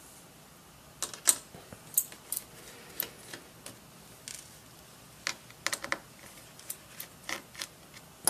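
A scattered series of sharp little clicks and ticks, starting about a second in: steel tweezers and tiny laptop screen screws tapping against the laptop's bezel and being set down on the wooden tabletop as the LCD panel's screws are taken out.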